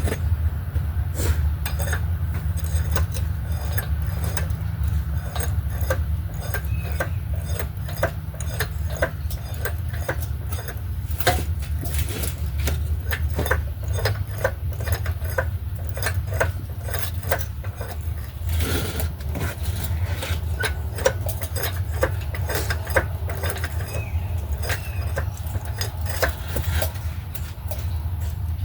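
Metal tools and parts clinking and knocking at an irregular pace, typical of hand work on a transmission and engine assembly, over a steady low hum.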